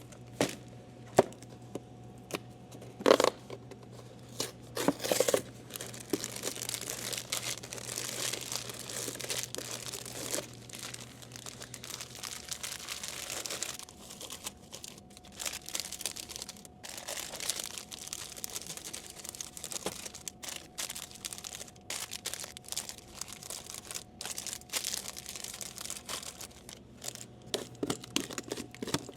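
Snack packaging being handled: plastic wrappers and packs crinkling and rustling, with tearing sounds and a few sharp knocks.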